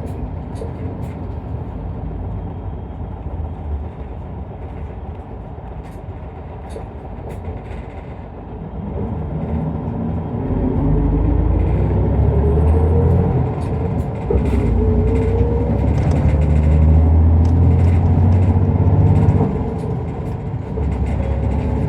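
Isuzu Erga Mio one-step bus's diesel engine and running noise, heard from inside the cabin. It runs steadily at first, then from about nine seconds in grows louder with the engine note rising in pitch as the bus accelerates, and eases off briefly near the end before picking up again.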